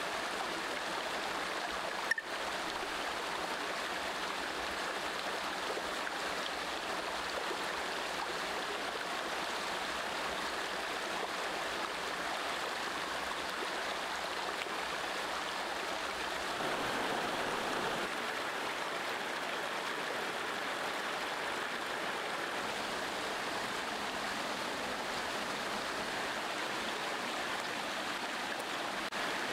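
Shallow stream running steadily over rocks, with one short sharp click about two seconds in.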